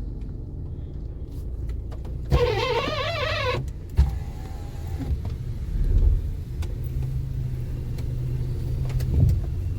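Fiat Linea running, heard from inside the cabin as a steady low rumble. A little over two seconds in there is a brief wavering squeal, and a few knocks come through.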